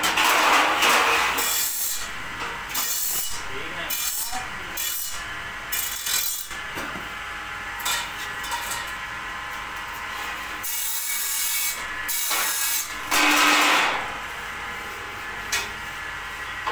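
Long steel bars being slid and dragged across a concrete floor, scraping and knocking against each other in separate bursts. The loudest scrapes come right at the start and again about 13 seconds in.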